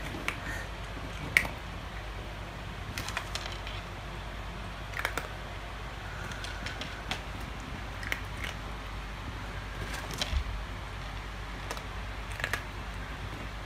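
A cat chewing crisp dry kibble: irregular sharp crunches every second or so, the loudest about a second and a half in.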